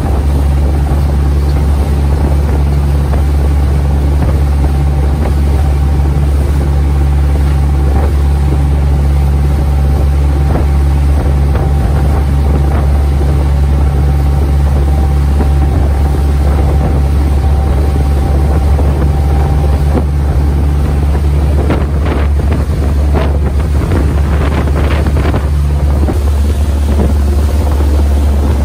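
Fishing boat's engine running steadily under way, a loud low drone, with wind buffeting the microphone.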